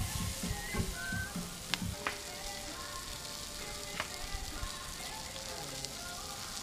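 Lobster and other food sizzling steadily on a flat-top griddle (plancha), with a few sharp clicks from the metal spatula and utensils.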